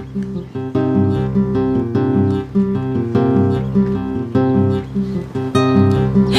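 Background music: a strummed acoustic guitar playing a steady, repeating pattern.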